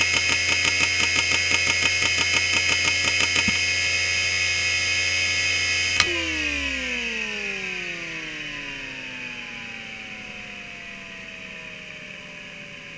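Fujitsu M2903SGM 5400 rpm seven-platter SCSI hard drive finishing its start-up calibration with rapid rhythmic pulsing, about four a second, as it works through each head. A click ends the pulsing and the spindle runs on with a steady whine. About six seconds in, a sharp click comes as the power is cut, and the platters spin down with a whine of several tones that slowly fall in pitch and fade.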